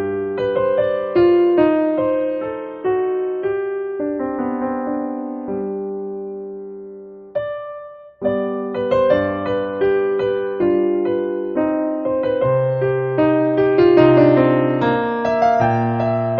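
Background piano music: a gentle melody of struck notes that fade after each attack. It pauses briefly a little under eight seconds in, then picks up again.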